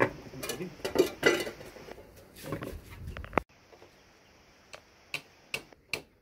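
Plastic pallets knocked and rattled as they are handled into place. Then sharp single clicks, about two a second, from hand-work at the pallet joints.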